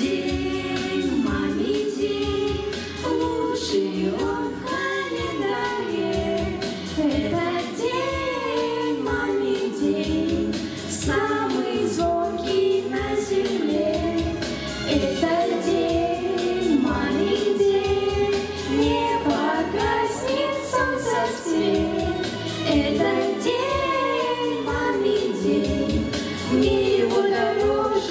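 Children's vocal ensemble singing a song into microphones over instrumental accompaniment.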